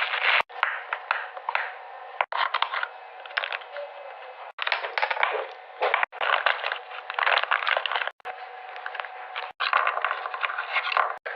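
Fidget toys being handled: dense clicking, crackling and scraping, with the sound cutting off abruptly every second or two and starting again.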